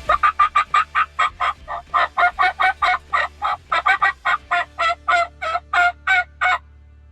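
Turkey yelping: a long run of about two dozen short, evenly paced notes, roughly four a second, that stops abruptly near the end.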